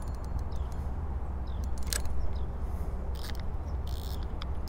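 Scattered sharp clicks from a Penn spinning reel being handled while a hooked fish is on the line, with the strongest click about two seconds in, over a low steady rumble.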